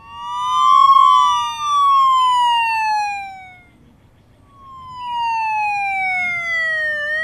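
Cartoon emergency-vehicle siren sound effects. Two sirens glide up and down across each other and fade out after about three and a half seconds. Then a single slower fire-engine siren wails down in pitch and starts to rise again near the end, with faint birdsong behind.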